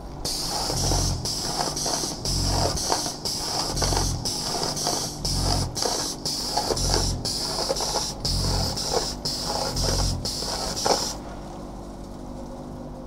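Gravel pouring from a batching plant's aggregate bin gate onto a running conveyor belt: a steady hiss with gravel rattling and a low thump about every one and a half seconds. The pouring stops about eleven seconds in, leaving a quieter steady hum.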